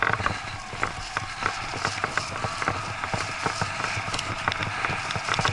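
Bike rattling and jolting over a rutted dirt track, irregular clicks and knocks over a steady rushing noise, while pulled by a running dog.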